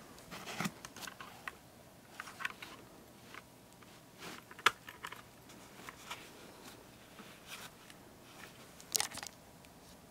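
Light clicks and rustles of hands handling a power bank and plugging a USB cable into it. One sharp click comes a little before halfway, and a short cluster of clicks comes near the end.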